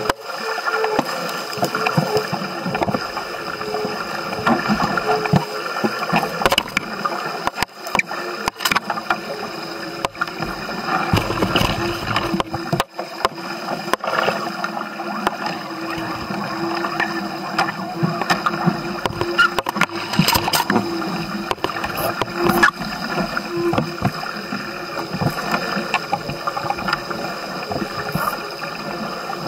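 Water rushing and splashing along the hull of a Musto Skiff sailing dinghy under way, with scattered knocks and clatter throughout.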